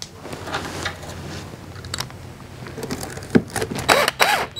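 Cordless drill/driver driving a T25 screw down through the brushes into a plastic brush block on a harvester chain, its motor spinning up in several short trigger pulses near the end. Before that, a low steady hum with handling and rustling as the drill is brought to the screw.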